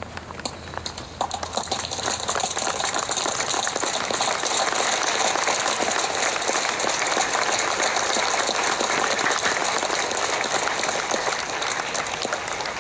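Large crowd applauding: the clapping builds over the first couple of seconds, holds steady, then eases off near the end.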